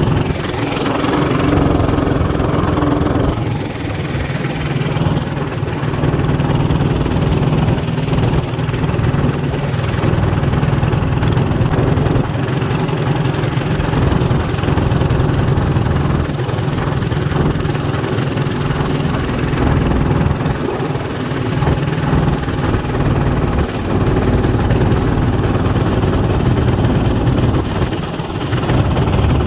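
Predator 224 single-cylinder gas engine on a longtail mud motor running steadily at a constant speed.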